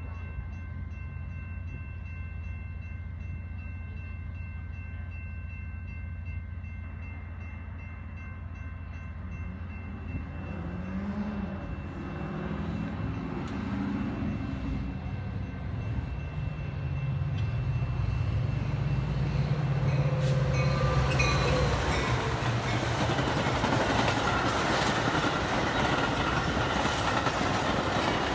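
A Metra diesel-hauled commuter train approaching and passing close by. The locomotive's engine grows louder about halfway through, then the steel wheels of the bi-level gallery cars rumble past loudly to the end.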